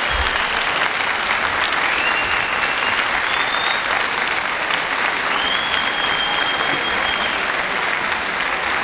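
Concert audience applauding steadily, with a few short high whistles over the clapping.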